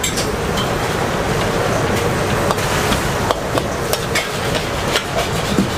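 Metal spatula clanking and scraping against a steel wok while noodles are stir-fried, in sharp irregular knocks about twice a second over a steady frying sizzle.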